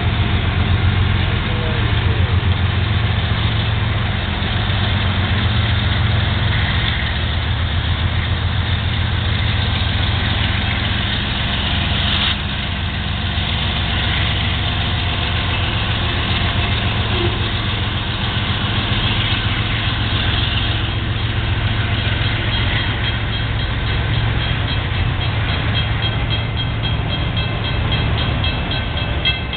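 Union Pacific diesel-electric freight locomotives rumbling past at close range, followed by autorack freight cars rolling by with steady wheel and rail noise. A faint high-pitched squeal comes in over the last several seconds.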